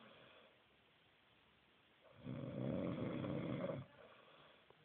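A man snoring in his sleep: one snore starting about two seconds in and lasting about a second and a half, with a low buzzing pitch.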